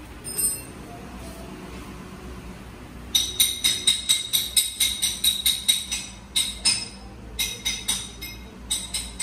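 Rapid ringing metal-on-metal hammer strikes, about four or five a second, starting about three seconds in and broken by a few short pauses, after a single metallic clink near the start.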